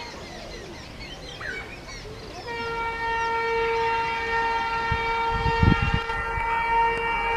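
Electric locomotive horn sounding one long steady blast from about two and a half seconds in, as the train approaches at speed; before it, only birds chirping. A few low thumps around five to six seconds in.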